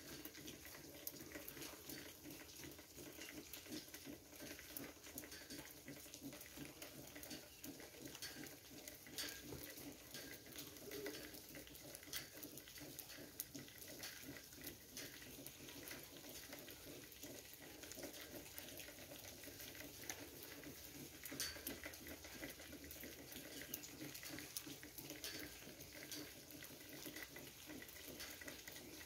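Faint trickle of running water with many small, irregular ticks and drips.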